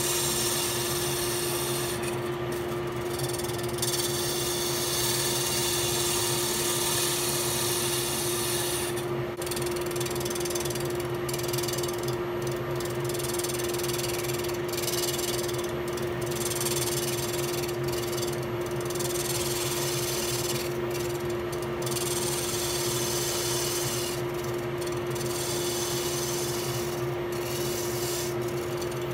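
Wood lathe running with a steady hum while a gouge cuts a spinning black walnut blank, giving a continuous cutting hiss that breaks off briefly again and again.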